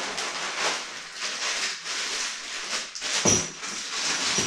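Clear plastic parts bag crinkling and rustling as it is handled, with a sharp knock about three seconds in.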